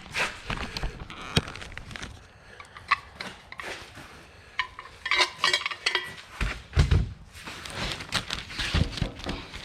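Tie-down gear being handled while a load is strapped: scattered light metallic clinks and rattles, a denser clatter about five seconds in, and dull thumps around seven seconds in.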